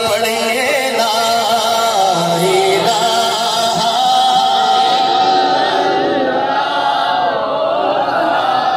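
A man singing a naat through a microphone and loudspeakers, holding long, drawn-out notes that waver and bend in pitch.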